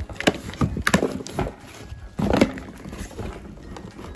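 Utility knife slitting clear packing tape on a cardboard box, then the cardboard flaps being pried open by hand: irregular scraping, crackling and rustling, with a louder scrape about two seconds in.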